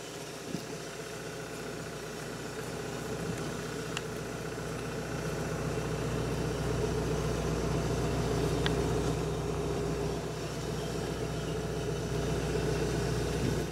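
Excavator engine idling steadily, growing somewhat louder toward the middle, with a few faint clicks as the stump grinder's metal teeth are handled.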